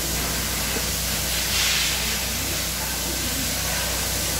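A steady hissing noise with a low hum underneath, and a brief louder hiss about a second and a half in.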